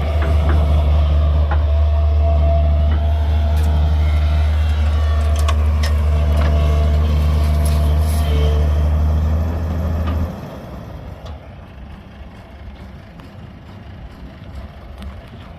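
Heavy diesel engine running steadily with a deep hum, with scattered clanks and clicks over it. About ten seconds in the engine sound drops away suddenly, leaving a much quieter rumble.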